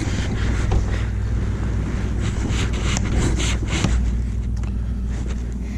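Rustling of a paper template being handled, in short scattered bursts, over a steady low rumble.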